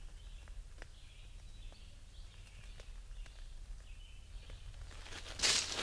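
Footsteps through dry fallen oak and beech leaves: soft scattered leaf rustles, then a loud crunch of leaves near the end. Faint, repeated high chirps sound in the background.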